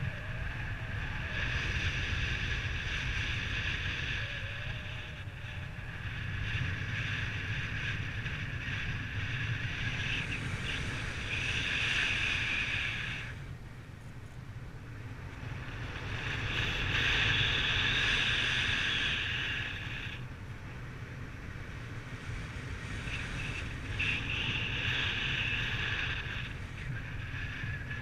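Wind rushing over the microphone in flight: a steady low buffeting with a hiss that swells and fades every few seconds as the airflow changes.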